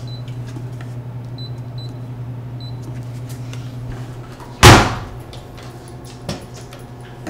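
Short electronic beeps from a laundry payment kiosk's keypad as keys are pressed, four in the first three seconds, over a steady low hum. About four and a half seconds in comes one loud bang, the loudest sound, followed by a smaller knock.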